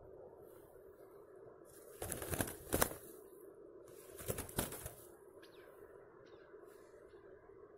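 A chukar partridge trapped under a net flapping its wings against the mesh in two short bursts, about two seconds apart.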